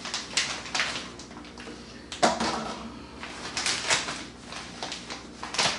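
Plastic vacuum-sealer bag crinkling and rustling in the hands as strawberries are worked down into it, with a few sharp, louder crackles.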